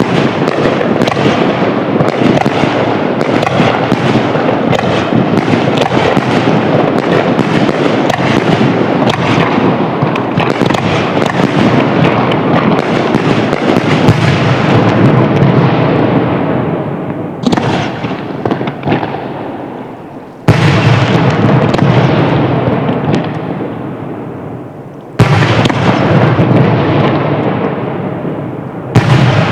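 Fireworks display: a dense barrage of booming bursts and crackling. It fades after about fifteen seconds, then starts again suddenly and loud several times, dying away after each.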